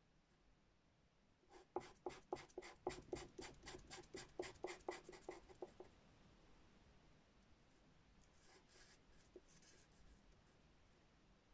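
Pastel pencil scratching on pastel paper in a quick run of short strokes, about five a second, for about four seconds. Then a few fainter strokes follow.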